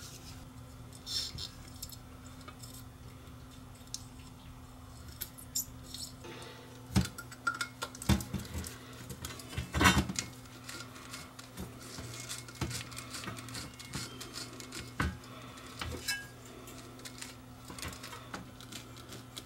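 Scattered light clicks and metallic clinks of hand tools and small metal parts being handled, with a few louder knocks about seven, eight and ten seconds in, over a faint steady low hum.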